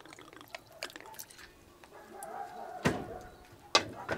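Liquid pouring from a bottle with a pourer spout onto raw meat in a metal tray, dripping and splashing. About three seconds in come three sharp knocks, the loudest sounds.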